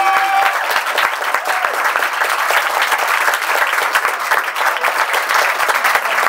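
Audience applauding at the end of a song, a steady, dense clatter of many hands clapping.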